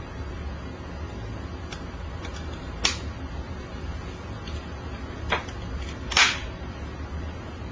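A hand-held lighter being struck to light candles: a few sharp clicks, the loudest about three seconds in and about six seconds in, over a steady low hum.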